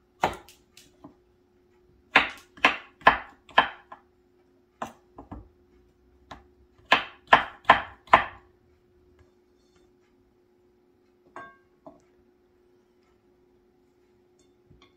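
Kitchen knife chopping a zucchini into chunks on a wooden cutting board: two quick runs of four cuts, about two a second, with a few single cuts before and between. Near the end come two light taps.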